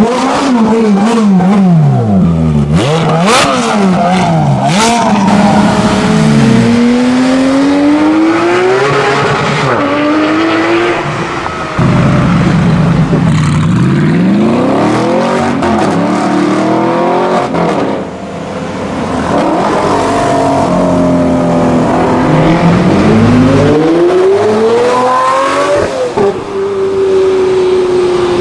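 Supercar engines revving hard and accelerating away in several separate clips, the engine pitch climbing and falling with each rev and gear change. A few sharp cracks come about three to five seconds in.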